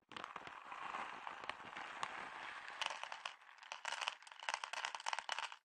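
Dry cat food poured from a crinkly plastic Purina Friskies pouch into a plastic bowl: the bag crinkles while kibble rattles into the bowl in rapid clicks, thickest in the last two seconds, then stops suddenly. It is a sound the cat knows means food.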